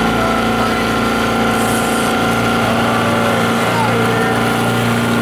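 Fishing boat's engine running steadily, throttled up while trolling so that a hooked salmon does not tangle in the downrigger cables.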